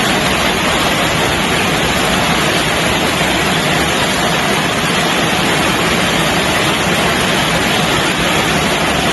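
Heavy rain falling: a steady, loud hiss with no break.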